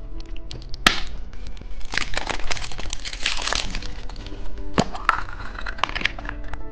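Plastic candy packaging being handled and opened: sharp cracks and clicks of hard plastic about a second in and again near five seconds, with crinkling of a wrapper in between. Light background music plays under it.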